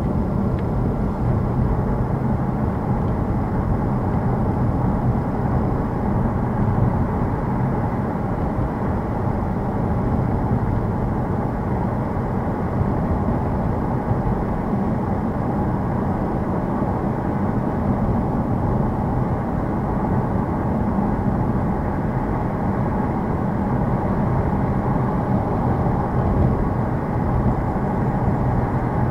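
Car driving on a snow-covered road, heard from inside the cabin: a steady low rumble of tyres and engine that does not change.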